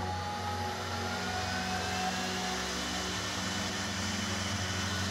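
Router spindle motor running with a whine that rises in pitch over the first couple of seconds and then holds steady, over a low hum. A straight bit is cutting box-joint slots into the end of a wooden board.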